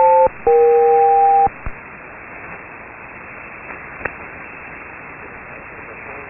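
HF SELCAL selective-calling signal over a single-sideband receiver: the end of one pair of simultaneous steady tones, then after a short gap a second, slightly lower tone pair lasting about a second, the coded alert from a ground station to an aircraft. Then steady static hiss, with a single click about four seconds in.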